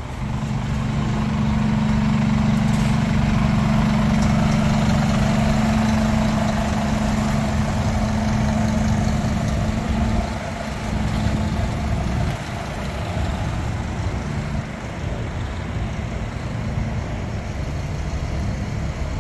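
Scania P360 truck's diesel engine idling with a steady low hum, growing somewhat quieter about halfway through.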